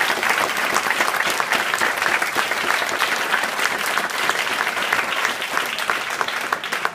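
Audience applauding: dense, steady clapping from a crowd, beginning to die away at the very end.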